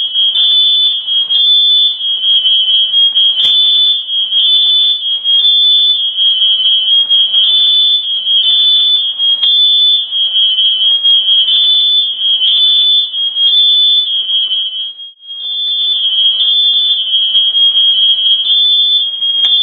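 Smoke alarm sounding in a smoke-filled house, a loud, shrill, rapidly repeating beep. It drops out for a moment about fifteen seconds in, and there is a single click a few seconds in.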